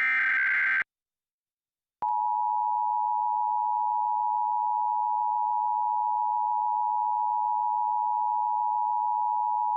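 A short burst of the Emergency Alert System's SAME digital data header, lasting under a second. After about a second of silence comes the EAS two-tone attention signal: two steady pitches sounded together for about eight seconds, announcing the start of the emergency alert.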